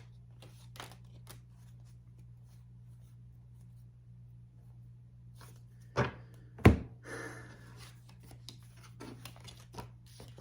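Tarot cards being handled and shuffled for a clarifier draw: scattered soft rustles and clicks, two sharp thumps about six seconds in, then a brief rustle, over a steady low hum.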